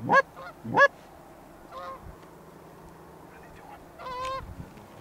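Goose honks: two loud, short honks that swing up in pitch within the first second, then a fainter honk about two seconds in and a longer one about four seconds in.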